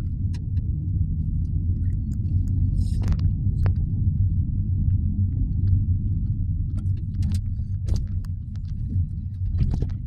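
Low, steady rumble of a car driving, with a few light clicks and rattles.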